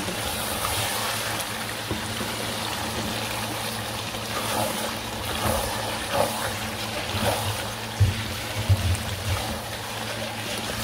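Chicken and capsicum curry sizzling and bubbling in a pan on low heat, a steady hiss with faint crackles. A couple of soft knocks come about eight seconds in.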